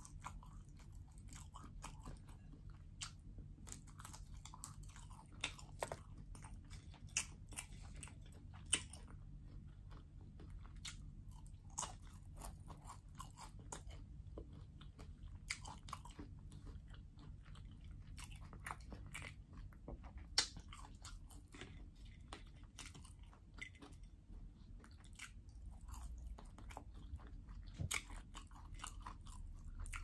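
Close-miked chewing of fried potatoes and roasted chicken: irregular crunchy bites and sharp wet mouth clicks over a low steady hum.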